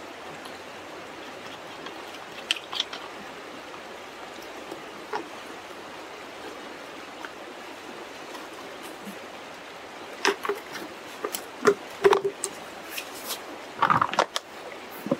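Steady hiss of flowing river water. About ten seconds in comes a quick cluster of sharp clicks and knocks as gear is handled: a homemade bailer funnel and adapter for a Sawyer Squeeze water filter.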